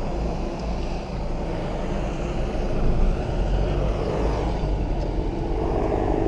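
Cabin noise of a moving car: the 2015 Renault Sandero 1.6's engine running, with a steady low road rumble.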